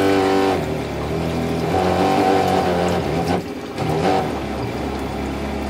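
Camper sink's 12-volt water pump running with a steady hum that changes about half a second in to a rougher, wavering sound.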